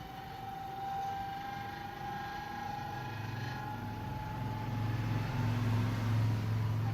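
A motor running: a steady high whine that slowly rises in pitch, with a low hum growing louder from about three seconds in.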